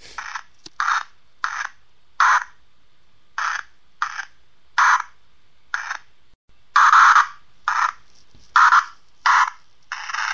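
Short bursts of radio static, about a dozen, each lasting a fraction of a second and coming irregularly, roughly one every half second to a second. The loudest and longest is about seven seconds in, and a longer burst starts near the end.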